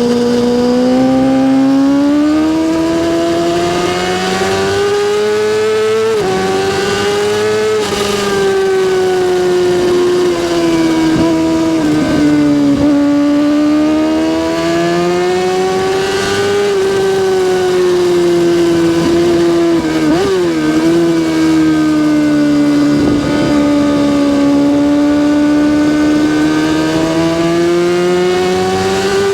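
Kawasaki ZX-6R inline-four motorcycle engine running continuously at high revs. Its pitch climbs over the first few seconds, then rises and falls gently, with a quick dip about 20 seconds in.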